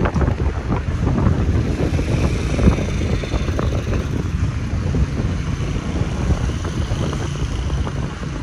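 Storm wind buffeting the microphone: a loud, gusty rumble with irregular knocks.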